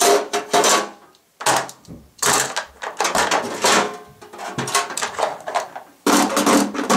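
Hand tools clattering and scraping inside a small steel toolbox as they are taken out and the plastic tote tray is moved: a series of irregular rattling knocks with short pauses between them.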